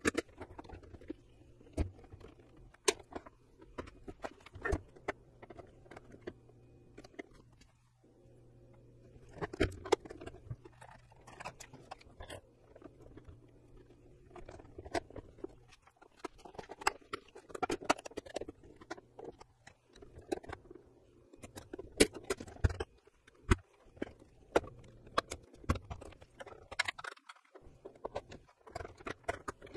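Irregular clicks, taps and short scrapes of hands and tools working on the plastic housing and screws of a Brother LB5000S sewing machine as it is taken apart. A faint steady low hum sits underneath and stops about halfway through.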